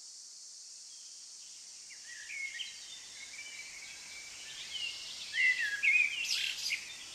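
A songbird singing in a string of short chirping notes, starting about two seconds in and loudest near the end, over a steady high hiss.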